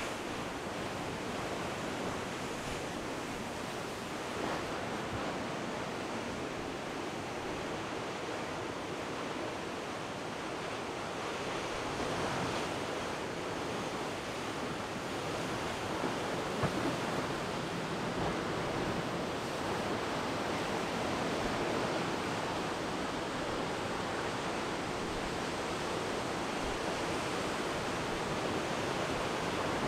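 Heavy storm surf, seas of about 20 feet, breaking and churning against a rocky shore, a continuous, steady wash of noise.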